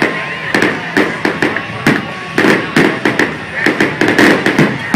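Fireworks display with shells and crackling effects going off in quick succession: a continuous run of sharp bangs and crackles, several a second.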